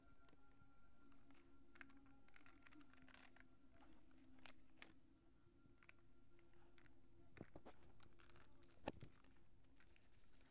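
Faint scratchy rustling and scattered clicks of a paper cut-out and plastic toy figures being handled and shuffled on carpet, with one sharper click near the end, over a faint steady hum.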